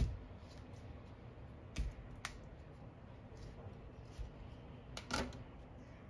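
A knife cutting into a dragon fruit on a kitchen counter: a few short, sharp cuts and taps with quiet gaps between them.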